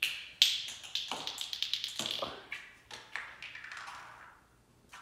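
Small ball clattering and bouncing across a ceramic tile floor as a cat bats it, a quick run of sharp taps with the loudest about half a second in, thinning to lighter scattered taps after about two seconds.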